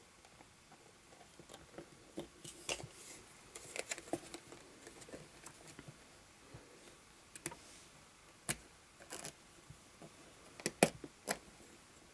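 Handling noise from fitting a vinyl doll leg onto its elastic-cord connector: scattered small clicks and rustles, with a few sharper clicks in the second half.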